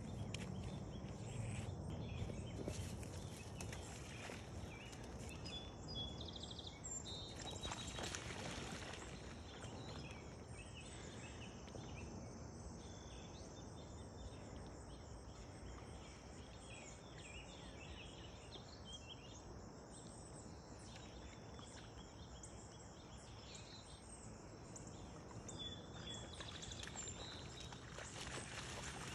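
Outdoor pond ambience: birds chirping on and off over a steady high insect hum. There are a couple of short louder rushes of noise, about eight seconds in and near the end.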